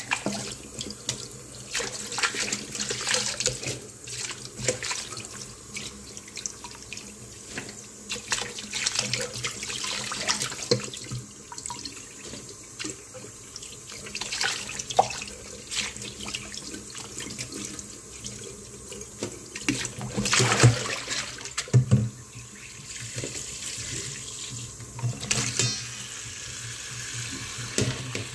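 A tap running into a steel bowl of water in a sink while kailan (Chinese broccoli) leaves are swished and rinsed by hand, with irregular splashing and sloshing. The splashing is loudest about two-thirds of the way through.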